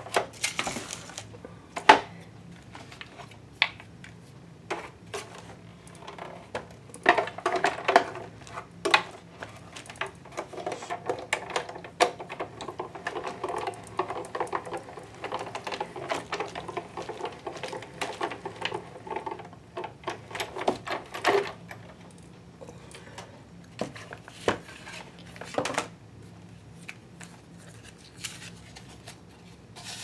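Hand-cranked Cuttlebug embossing machine: its handle is turned for a long stretch from about seven seconds in to about twenty-one, a quick run of clicks as the rollers draw a paper piece in an embossing folder through between plastic plates. Around it, scattered knocks of the plastic plates, folder and machine being set up and handled.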